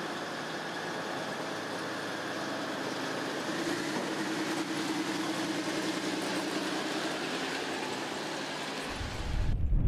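Tracked armored vehicle driving over the metal deck of a ribbon bridge: engine running with the steady clatter of its tracks, a droning tone swelling around the middle. Near the end the sound cuts abruptly to a low wind rumble on the microphone.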